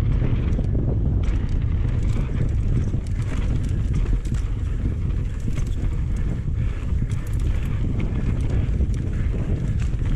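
Wind rushing over the microphone of a camera riding on a moving mountain bike, with the tyres rolling over the dirt trail and scattered clicks and rattles from the bike.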